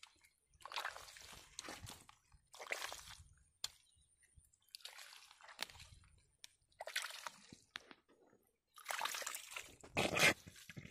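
A bare hand squelching and sloshing in wet mud and muddy water while digging out a hole, in a series of separate wet bursts, the loudest near the end.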